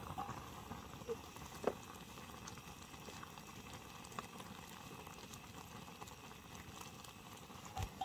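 Pot of Maggi noodles bubbling at a steady boil over the fire, with a few faint clicks or crackles.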